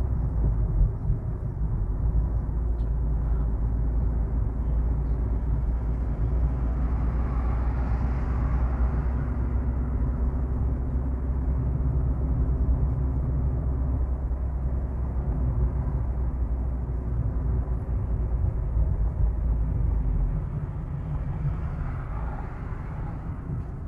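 Steady low road and engine rumble of a car driving, heard from inside the cabin, with two brief swells of passing traffic noise, one about a third of the way in and one near the end. The rumble eases a little in the last few seconds.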